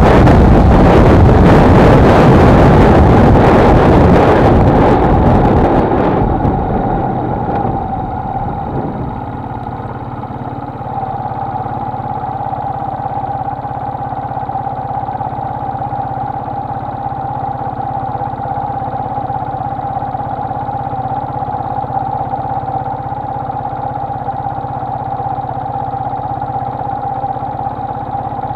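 Wind and riding noise on a moving Honda XLR125R die away over the first several seconds as the motorcycle slows to a stop. Its single-cylinder four-stroke engine then idles steadily.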